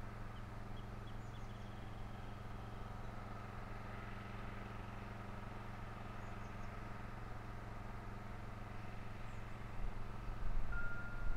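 Steady low outdoor hum with faint, short high bird chirps now and then. A louder, uneven low rumble comes in near the end.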